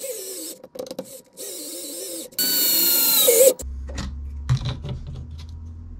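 Cordless electric screwdriver whirring in short runs as it drives screws into a plastic RC car chassis. The longest and loudest run ends about three and a half seconds in. A few light clicks follow as the tool is put down.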